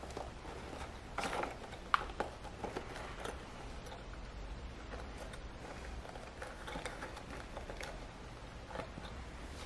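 Small leather drawstring pouch being handled: faint rustling of the leather and drawstring laces, with scattered light clicks, the sharpest about two seconds in.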